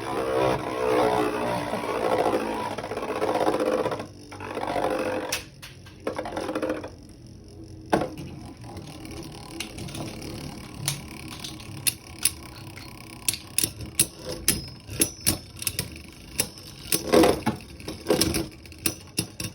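Spinning Beyblade Burst tops whirring and scraping across a plastic stadium for the first eight seconds or so. After that comes a run of short, sharp plastic clicks and clacks.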